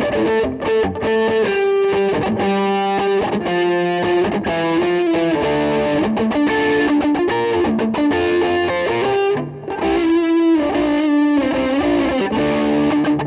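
Electric guitar, a Gibson Les Paul Custom replica, playing a melodic line of held and changing notes, with a brief break about nine and a half seconds in.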